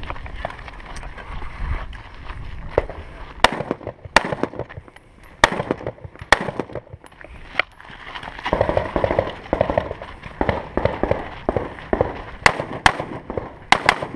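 Rifle shots fired one at a time at an irregular pace, a second or more apart, with a quicker string of about four shots near the end.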